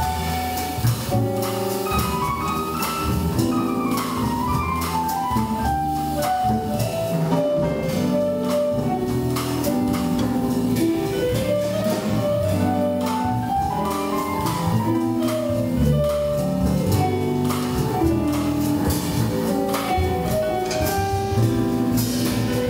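Live swing jazz from piano, double bass and drum kit, the piano playing quick running melodic lines over the bass and drums.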